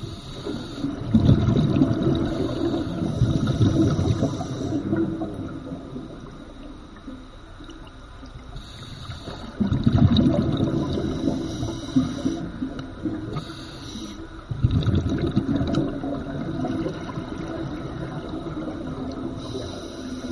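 Scuba breathing heard underwater: three long bursts of exhaled bubbles rumbling and gurgling from a regulator, about five to six seconds apart, with softer hissing between them.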